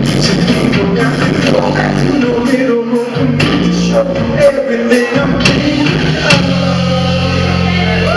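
A live band playing a song, with singing over it.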